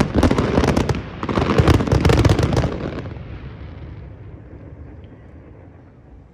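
Fireworks display at its close: a dense barrage of rapid bangs and crackles for about three seconds, then the sound fades away with no further bursts as the show ends.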